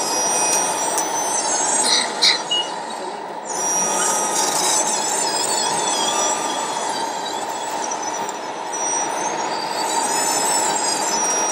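Radio-controlled model wheel loader's electric motors and hydraulic pump whining at high pitch, the whine rising and falling as the bucket is raised, over a steady hum. A few sharp clicks come about two seconds in.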